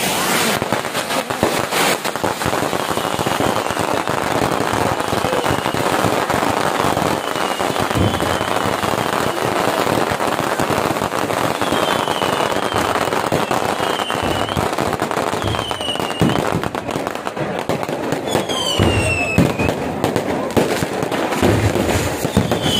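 Aerial fireworks crackling and popping densely and without a break, many small bangs overlapping. Short falling whistles cut through every second or two, with a longer one near the end.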